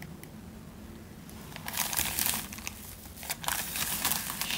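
USPS padded flat-rate mailer being opened by hand, its packaging crinkling and crackling in irregular bursts that start about a second and a half in.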